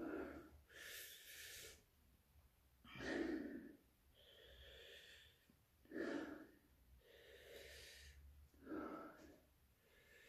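A man breathing hard through an open mouth against chili burn: sharp intakes alternating with longer, softer exhalations, about one breath sound every one and a half seconds.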